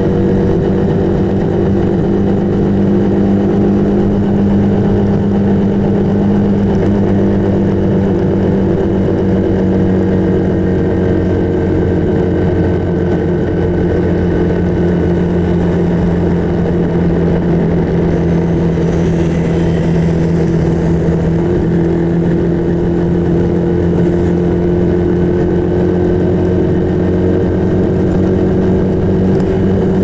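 Motorcycle engine running steadily while riding at road speed, heard from on board; its note dips a little about halfway through and climbs again toward the end.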